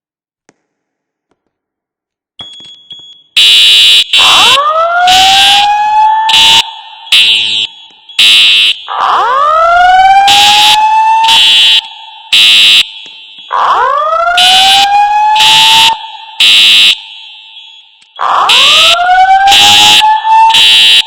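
Building fire alarm sounding: loud, high-pitched horn blasts in a repeating on-off pattern over a rising whoop tone that sweeps up about every four and a half seconds, the alert tone of a voice-evacuation system. It starts about three seconds in.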